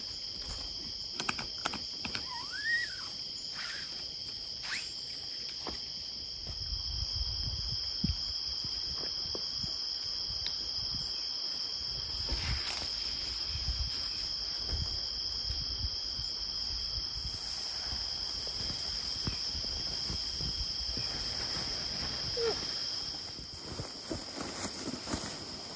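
Crickets singing in a steady high trill, with a few small knocks and rustles near the start and a low rumble through the middle.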